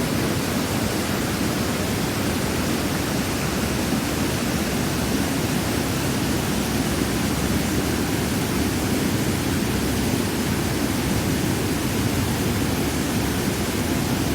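River water falling and rushing in a steady, continuous roar with no breaks or separate splashes.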